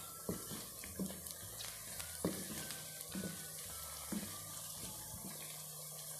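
Chopped radish pods (mongray), onion and green chillies sizzling in hot oil in a kadhai, stirred with a spoon: a steady hiss with scraping strokes roughly once a second that stop about five seconds in.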